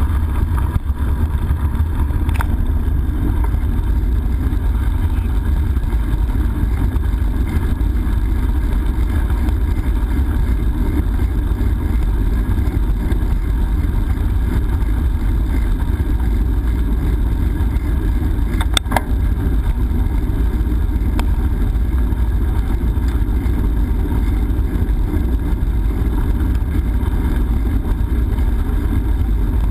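Steady low rumble of wind and riding noise buffeting a GoPro's microphone on a moving bicycle, with two sharp clicks, one a couple of seconds in and one about two-thirds through.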